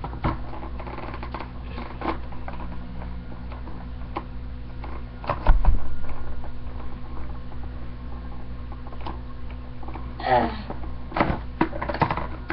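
Scissors working at hard plastic packaging: irregular snips, clicks and crinkling, with a louder thump about halfway through.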